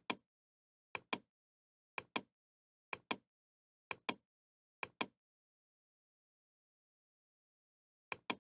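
Computer mouse button clicked repeatedly, each click a quick press-and-release double tick: six clicks about once a second, a pause, then one more near the end. Nothing else is heard between the clicks.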